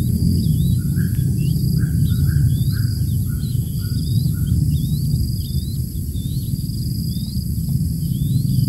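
Birds calling outdoors: a run of about seven soft, evenly spaced notes in the first half, over repeated short high chirps and a steady low rumble.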